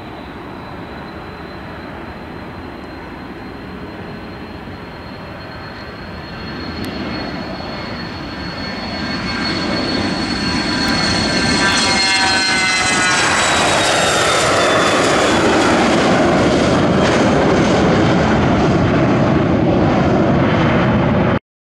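Cessna Citation Latitude business jet's two Pratt & Whitney Canada PW306D turbofans at take-off power: a steady jet rush with a high whine that grows louder from about six seconds in as the jet rolls, lifts off and passes. The whine drops slightly in pitch as it goes by, then the sound cuts off abruptly near the end.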